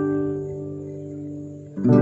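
Acoustic guitar chord ringing and slowly fading, then a new chord strummed near the end.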